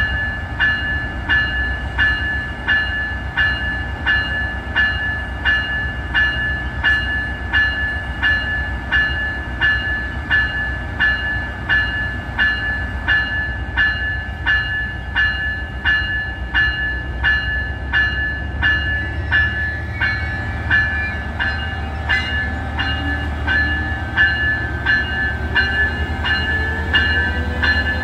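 Locomotive bell on an ACE Siemens Charger diesel locomotive ringing steadily, about three strikes every two seconds, over the low rumble of the diesel engine. Near the end a rising whine comes in as the train gets moving past.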